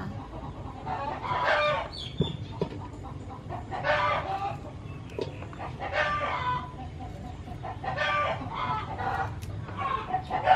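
Chickens calling repeatedly, one call about every two seconds, each call under a second long.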